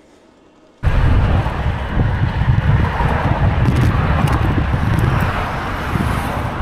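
Wind buffeting the microphone of a camera on a moving e-bike, mixed with the rumble of car traffic passing close by; it starts abruptly about a second in and stays loud.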